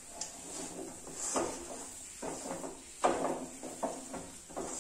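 Wooden spatula scraping and stirring a thick gram-flour and coriander dough around a metal kadhai, scraping the stuck mixture off the pan's sides, in repeated strokes about once a second.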